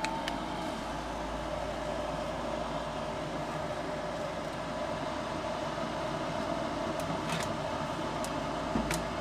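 Replacement draft inducer motor of a 2008 Goodman two-stage gas furnace running steadily with a steady whine and low hum, during the furnace's start-up sequence before the burners light. A few light clicks near the end.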